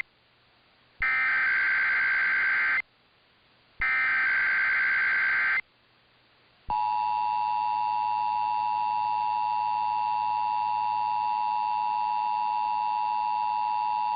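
Emergency Alert System SAME header, received over AM radio: two bursts of warbling data tones, each nearly two seconds long with a second of quiet between them. About seven seconds in comes the EAS two-tone attention signal, 853 and 960 Hz played together, which holds steady.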